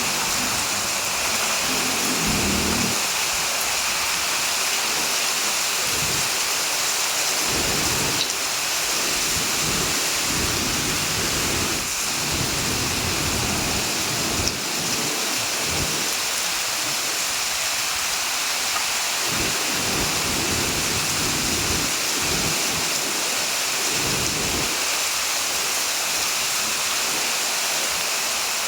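Heavy rain falling as a steady, dense hiss, with low rumbles coming and going underneath.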